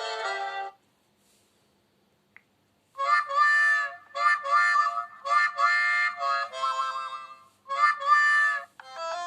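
Built-in ringtones of an LG Leon phone: one tone cuts off shortly in, and after about two seconds of silence another ringtone plays as a rhythmic tune of short chords. The next tone begins near the end.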